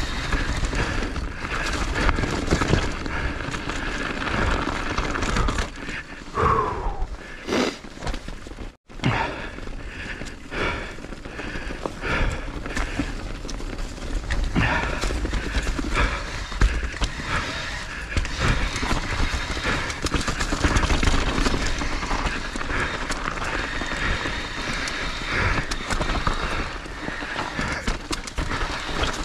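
Skiing downhill: wind buffeting the microphone and ski edges scraping over the snow through the turns. The sound cuts out briefly about nine seconds in.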